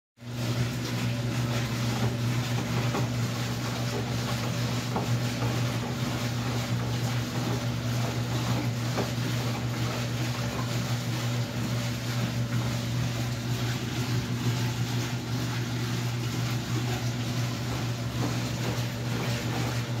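Samsung front-load washing machine running, its drum turning a load of wet dish towels, with a steady low motor hum over a noisy wash-and-drum rush.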